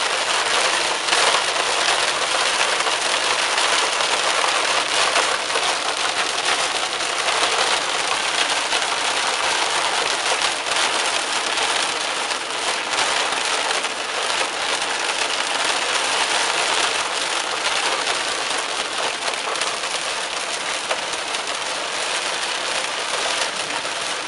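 Heavy rain pelting the car's roof and windshield, heard from inside the cabin as a dense, steady patter that eases a little near the end.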